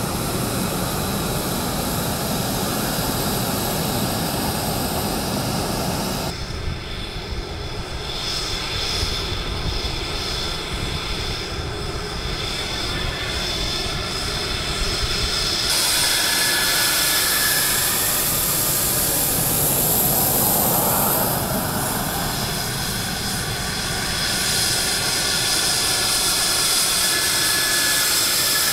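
F-16 fighter jets taxiing, their jet engines running with a steady rush and a high whine. The sound changes abruptly about six and sixteen seconds in.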